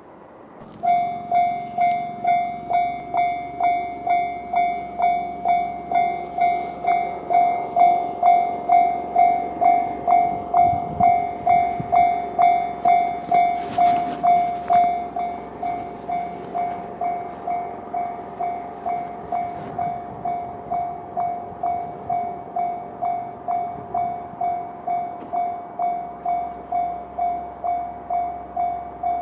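Japanese railway level-crossing alarm sounding the JR-standard electronic bell, starting about a second in and striking about twice a second. A Shinano Railway SR1 series electric train rumbles through the crossing around the middle, with a short hiss near its loudest point.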